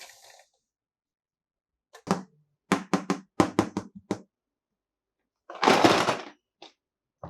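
Small plastic toy pieces clicking and clacking in a quick run of about seven taps, then a brief plastic crinkle and a couple of single clicks.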